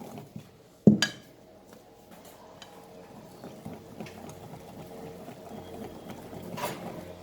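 Cake batter being mixed in a bowl, with one sharp knock about a second in and a faint steady hum underneath.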